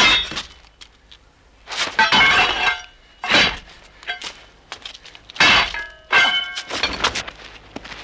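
Sword blades clashing in a fight: about five loud ringing metallic clangs, two of them drawn out into a longer scraping ring.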